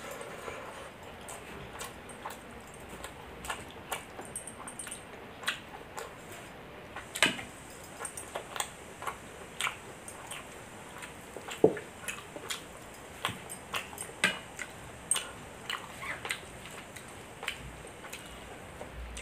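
Close-up eating sounds of milk rice being eaten: wet chewing and lip smacking, with irregular sharp clicks and squelches, the loudest about seven and eleven seconds in.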